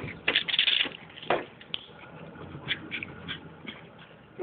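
Scuffling and shuffling of people and dogs moving about, with a noisy rustle early on, a single knock about a second in, and a few small clicks after.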